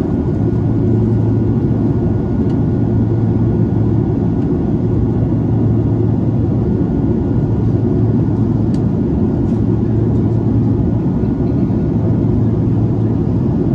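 Steady cabin noise of an Airbus A330 in flight, heard from a window seat by the wing: its Rolls-Royce Trent 700 turbofan engines and the airflow make an even, unchanging noise with a low steady hum.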